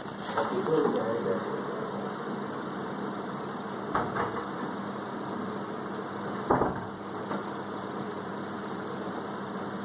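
Steady low mechanical hum, with two short knocks about four and six and a half seconds in.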